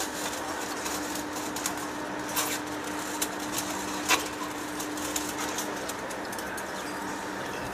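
Large industrial lathe running: a steady machine hum, with scattered sharp metallic clicks, the loudest about four seconds in.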